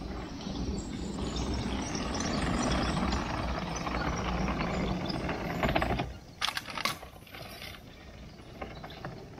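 Remote-controlled wooden tracked tank rolling on a concrete path, its wooden tracks and drive clattering steadily. The sound drops away suddenly about six seconds in, leaving a few sharp clicks.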